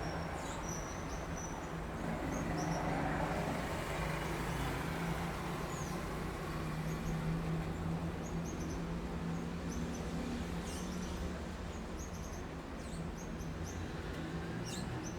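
City street ambience: a steady rumble of traffic with a low engine hum, and short, high bird chirps scattered throughout.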